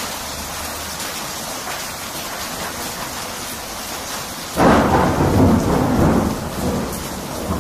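Steady rain falling, then a loud clap of thunder about four and a half seconds in that rumbles on for a couple of seconds.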